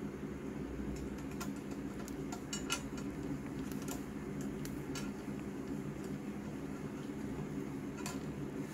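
Small metallic clicks and taps of a screwdriver and tiny bolts against a metal servo bracket as the bolts are driven in, scattered through the first half and once more near the end, over a steady low hum.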